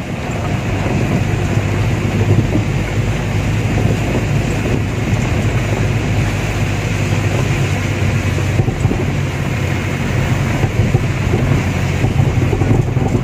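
Light truck's cab interior on the move: a steady low engine drone under an even hiss of road and wind noise.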